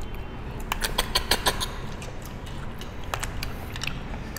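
People eating cooked freshwater snails (tharoi) out of their shells: a quick run of sharp sucking clicks about a second in, then a few more scattered clicks.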